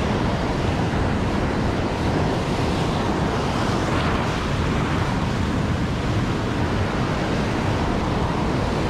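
Big ocean waves breaking and washing over shoreline rocks in a steady roar of surf, swelling slightly about four seconds in.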